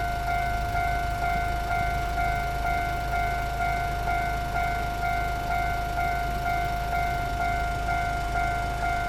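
Railway level crossing warning bell ringing in an even repeated ding, about three strokes every two seconds, over a steady low rumble.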